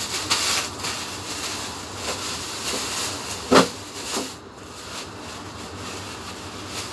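Plastic bags rustling and crinkling as groceries are handled, with one sharp knock about three and a half seconds in and a lighter one just after.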